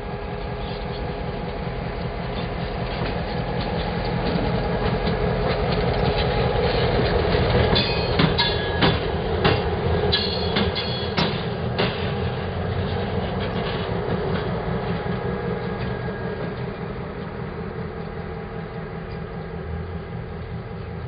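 CN diesel-electric locomotive running light past the listener: the engine's drone builds as it approaches, a quick run of wheel clicks over the rail joints comes as it goes by midway, and the drone then fades away.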